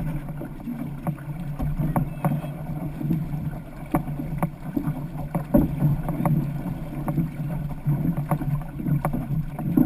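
Outrigger canoe under way at race pace: a steady rush of water past the hull, with the crew's paddle strokes catching and splashing about once a second.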